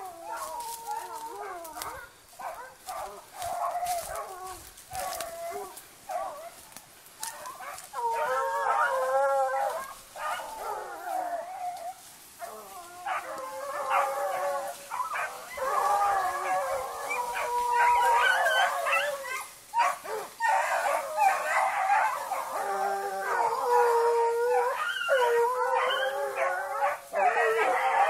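A pack of hunting dogs baying and howling on a fox's trail, several voices overlapping. The baying grows louder and more continuous partway through.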